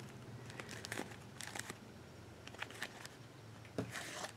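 Faint handling sounds: scattered small clicks and taps as a bamboo skewer and a glued craft piece are held and moved in the hands, with a short rustle near the end over a faint low hum.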